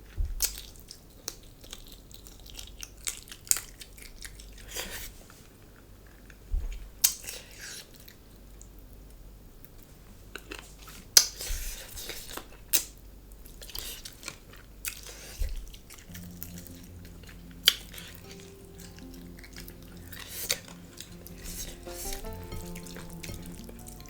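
Close-up eating sounds: chewing, with scattered sharp clicks and taps. About two-thirds of the way through, background mandolin music comes in under them.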